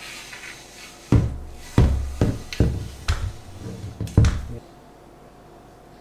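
A run of about seven irregular sharp knocks and thumps, each with a deep thud, over three and a half seconds: parts of a pleated insect net being handled on a tiled floor.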